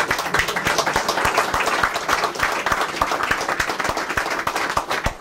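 Applause: a group of people clapping their hands steadily.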